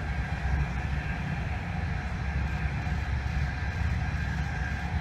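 Train running along the track: a steady low rumble with a faint, steady high whine over it.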